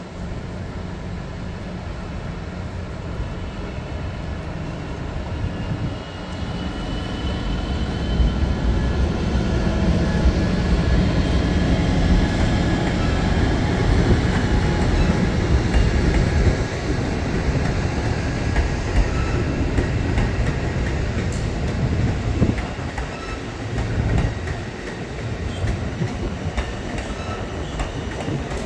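Amtrak passenger train led by a Siemens ALC-42 Charger diesel locomotive, with its Cummins QSK95 engine, approaching and passing, growing louder about eight seconds in. Then a steady rumble of bi-level Superliner cars rolling by on the rails.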